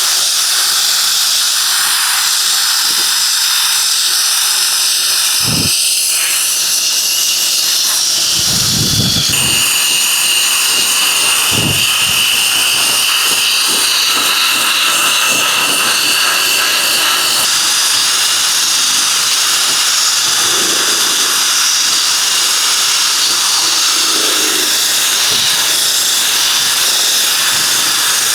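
Electric drill spinning a wet-sanding pad: a loud, steady hiss with a motor whine that shifts in pitch about ten seconds in, and a few dull thuds.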